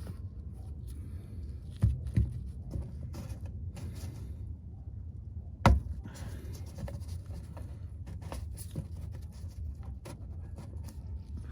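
Scattered clicks and knocks of plastic being handled as the underbody cover of a BMW X1 is fitted back on and its fasteners twisted in by hand. Two sharp knocks come about two seconds in and a louder one a little before the middle, over a steady low hum.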